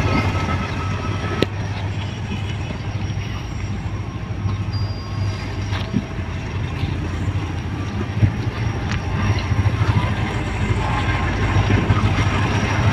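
Low, steady rumble of a diesel locomotive approaching along the track, getting a little louder near the end, with outdoor background noise.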